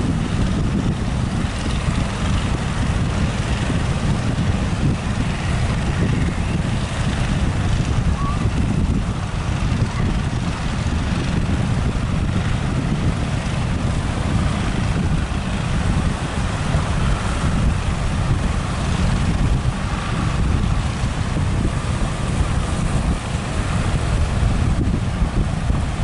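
Strong wind buffeting the microphone, a steady low rumble over the rush of breaking surf.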